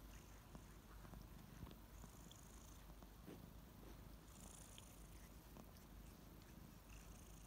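Kittens purring: a faint, steady low rumble close to the microphone, with a few soft clicks over it.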